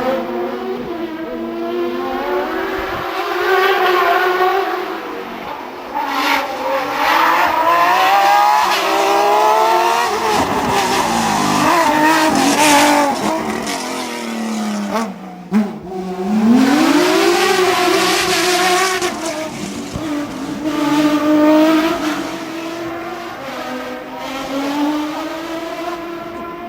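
Hillclimb race car engine revving hard through the gears. The pitch climbs and then drops at each shift; about halfway through it falls sharply and climbs again.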